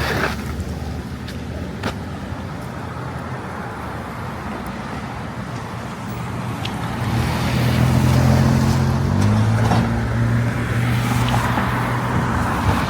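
Road traffic on a busy street. About halfway through, a nearby vehicle's engine grows louder, a low hum that steps in pitch a couple of times.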